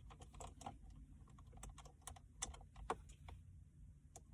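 Faint, irregular light clicks and taps of a screwdriver working on the plastic dashboard trim around a car's air control bezel.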